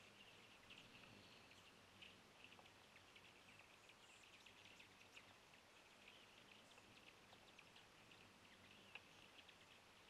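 Near silence: faint outdoor ambience with a steady scatter of quick, high-pitched chips and ticks from small birds.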